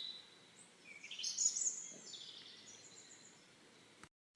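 Faint, high-pitched cartoon chirps and whistles that glide up and down about a second in, then fade away; a brief dead gap near the end marks a cut.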